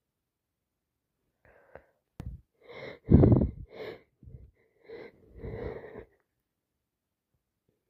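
A person with a cold sneezing and sniffing. Short breaths start about a second and a half in, the loudest burst comes just after three seconds, and more short bursts follow until about six seconds.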